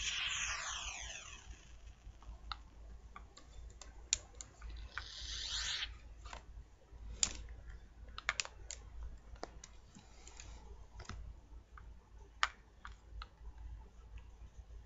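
A falling sweep right at the start as the music cuts off, then faint, irregular clicks and taps of typing on a computer keyboard, with a brief hiss about five seconds in.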